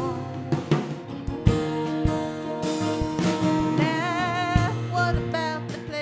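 Live acoustic folk song: two acoustic guitars strummed and picked, with a woman's singing voice coming in about four seconds in.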